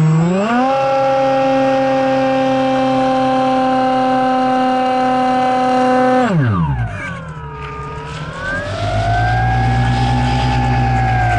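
Electric motor and pusher propeller of a Multiplex EasyStar II RC plane, heard from the plane itself. The whine rises as the throttle opens, holds steady through the climb, then falls away sharply about six seconds in. After that it comes back lower, sliding down and then up again over the rush of passing air.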